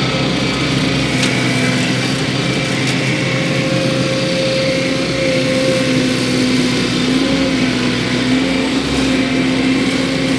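Wacker Neuson SM120 mini skid steer running steadily, with a constant engine note and a few faint ticks.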